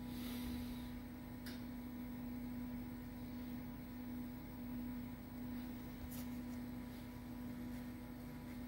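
Steady low hum of a desktop computer running as Windows boots, with a few faint ticks.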